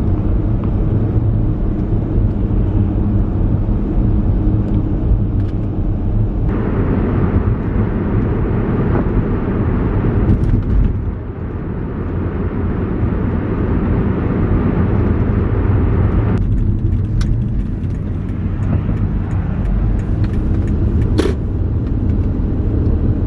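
Road and engine noise heard inside a moving car: a steady low rumble, with a hissier stretch for a few seconds from about six seconds in and a couple of sharp clicks near the end.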